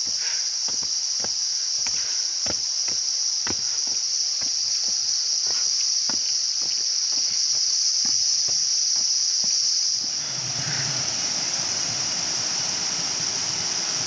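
Loud, steady, high-pitched drone of cicadas in tropical forest, with regular footsteps on a dirt path. About ten seconds in the footsteps stop and a broader rushing noise joins the drone.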